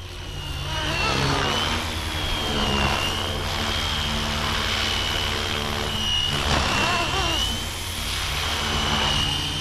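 FlyWing FW450 V3 electric RC helicopter flying overhead. Its motor and rotor give a steady high whine whose pitch wavers slightly as it manoeuvres, over a low rumble. A deeper rotor sound rises and falls about a second in and again around seven seconds.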